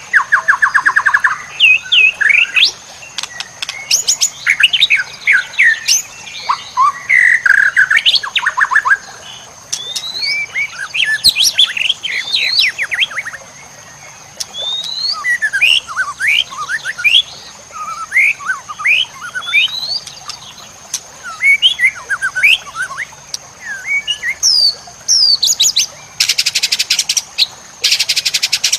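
White-rumped shama (murai batu) singing a rich, varied song of quick rising and falling whistles and fast trills, with two fast buzzing rattles near the end.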